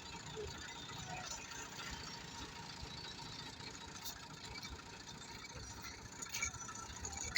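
A machine's engine running steadily.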